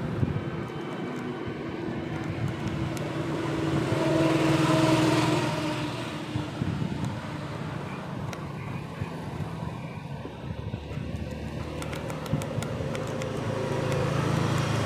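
Motor vehicle engine running steadily, growing louder about four seconds in and again near the end, with a few light ticks in between.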